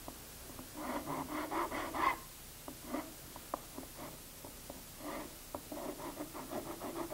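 Hand filing on wood: quick back-and-forth rubbing strokes, about five a second, sharpening up the points along a freshly rounded-over edge. Two runs of strokes, about a second in and again near the end, with light clicks and taps between them.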